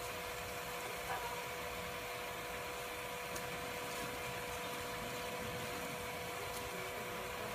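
Steady hum of a small motor, holding a few constant tones over an even hiss.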